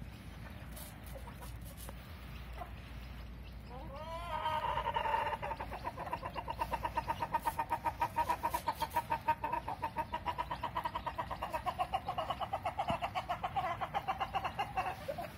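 Chicken giving one long, fast pulsing call that begins about four seconds in with a few rising notes, then runs steadily for some eleven seconds before stopping.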